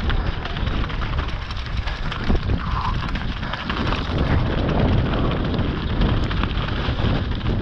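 Mountain bike descending fast over loose scree: tyres crunching and clattering over rocks and the bike rattling, with wind buffeting the action camera's microphone.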